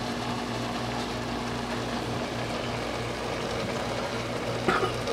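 A steady low mechanical hum that throbs gently, over a soft even hiss.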